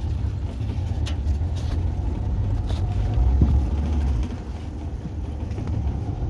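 Pontoon boat's outboard motor running at low speed as the boat is eased up to a float, a steady low rumble with a few light knocks.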